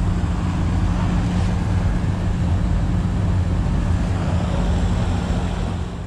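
Carrier heat pump outdoor unit running in heating mode: a steady low compressor hum under the even air rush of its condenser fan, easing off slightly near the end.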